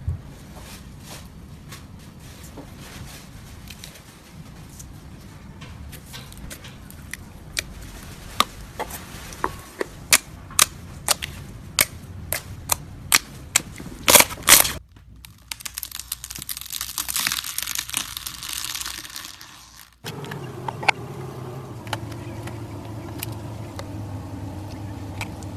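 Slime being squeezed and kneaded by hand, giving sharp popping clicks that come louder and faster, loudest about fourteen seconds in, then a few seconds of crackling hiss. After a sudden change a steady low hum takes over.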